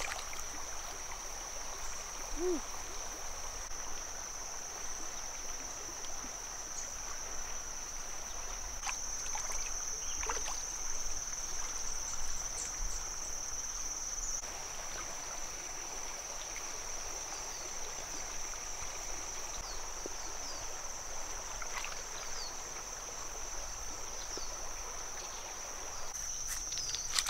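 A chorus of insects keeps up one steady, high-pitched drone.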